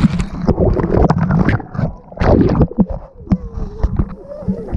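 Muffled water sloshing and irregular knocks and bumps of a waterproof camera being handled in and out of hot tub water, the high sounds dulled for most of it, with a louder burst of churning about two seconds in.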